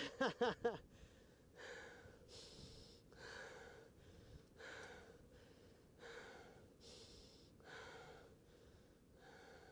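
A mountain biker's heavy breathing, steady panting at about one breath a second, after the tail of a short shout at the start.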